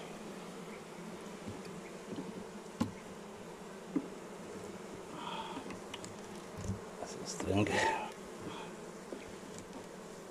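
Honeybees buzzing steadily over the frames of an opened hive. A few light knocks are heard, and a louder brief rustle comes about eight seconds in.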